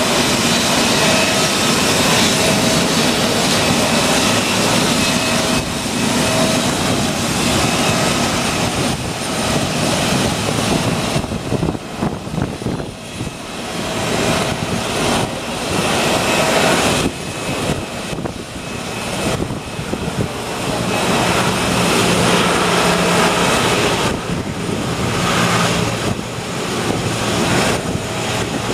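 Jet airliner engines running: a steady rush with a few high whining tones over it, dipping in level twice midway.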